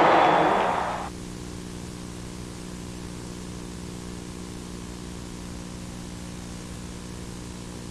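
Stadium crowd cheering that fades out within the first second, leaving a steady low hum of several even tones that does not change.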